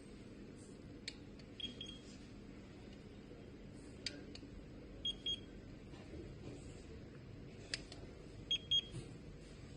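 Handheld digital infrared thermometer beeping: short, high electronic beeps in three groups, mostly pairs, each a moment after a sharp click.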